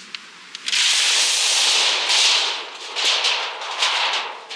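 Stiff synthetic fabric of camping gear rustling as it is handled: one long swishing rush, then several shorter crinkling rustles.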